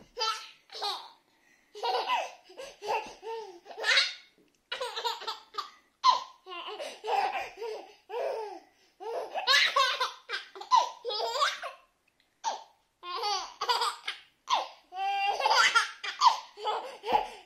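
A baby laughing in a long run of short bursts with brief gaps between them, starting abruptly after a silence.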